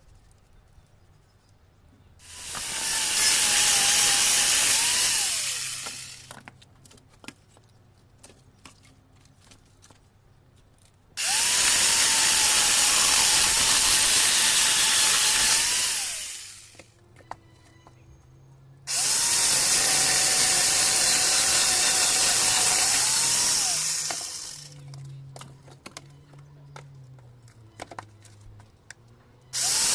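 Angle grinder fitted with a saw-chain attachment running in three bursts of several seconds each, cutting wood, with a fourth starting at the very end. Its high whine sags slightly under load during each burst and rises back just before it winds down. Between the bursts are quieter stretches with scattered clicks.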